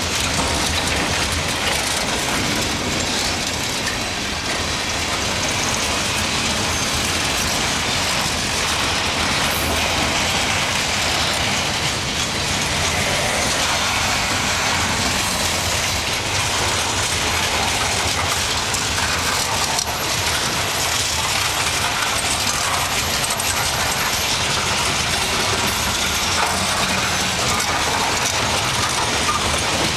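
Freight cars of a long mixed freight train rolling past: a steady rumble of steel wheels on rail with a run of clicks and clatter from the wheels and couplings.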